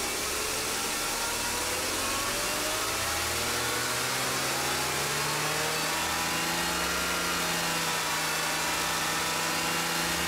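BMW E39 528i straight-six engine revving up from idle, its pitch rising over the first few seconds and then holding steady at raised revs.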